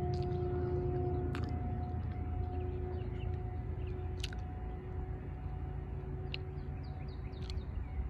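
A distant locomotive horn holds one steady note that slowly fades, over the low rumble of an approaching train. Birds chirp in short calls.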